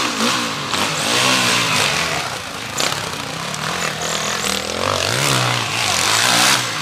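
Enduro dirt-bike engines revving hard under load on a steep muddy climb, the pitch rising and falling in repeated surges over a steady rushing noise.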